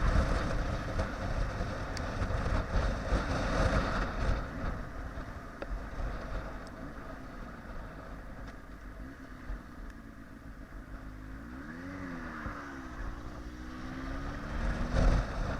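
Motorcycle under way in strong wind, the wind buffeting the microphone over the running engine. About twelve seconds in, the engine pitch rises and then falls.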